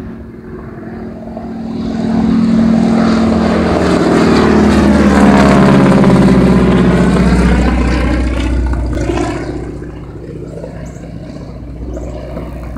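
Crop-dusting airplane flying low directly overhead: its engine and propeller grow loud over the first few seconds, peak about halfway, drop in pitch as it passes, then fade as it flies off.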